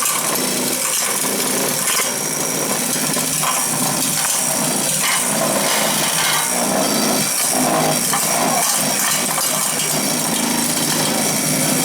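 Power vibrator running continuously, compacting dry-vibratable refractory material in a furnace lining, with a rise and fall in its noise about every 0.7 s.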